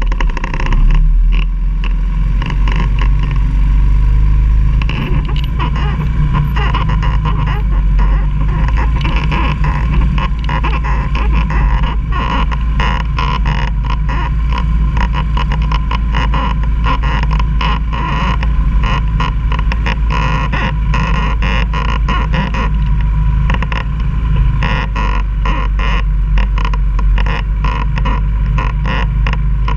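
ATV (quad) engine running with a steady low rumble, with frequent short knocks and rattles.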